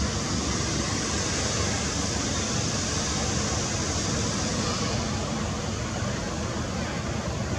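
Steady rushing noise with no distinct events, such as wind on the microphone, traffic or running water.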